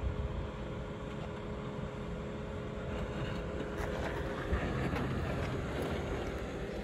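Suzuki Jimny's four-cylinder petrol engine running at low revs as the 4x4 creeps down a steep dirt slope, growing a little louder as it comes closer, with its tyres rolling over loose dirt.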